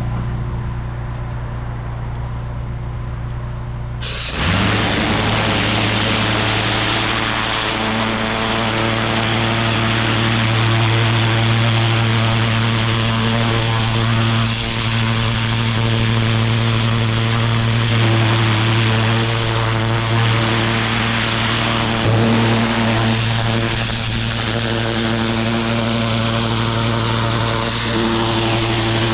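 Petrol pressure washer engine running steadily; about four seconds in, a loud hiss of high-pressure water spray starts over it and keeps going.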